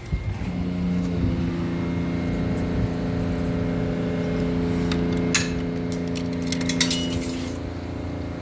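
Car engine running steadily with an even hum, and a brief jingle of keys or small metal about five to seven seconds in.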